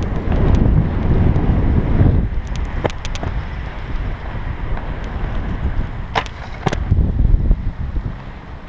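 Aggressive inline skate wheels rolling over rough concrete: a steady low rumble with wind buffeting the microphone. There are a few sharp clacks, one about three seconds in and two close together between six and seven seconds.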